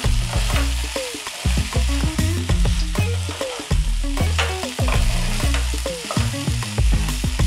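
Wooden spatula stirring and scraping sliced okra and potato cubes in a non-stick kadhai, with frequent clicks against the pan over the steady sizzle of the vegetables frying in oil.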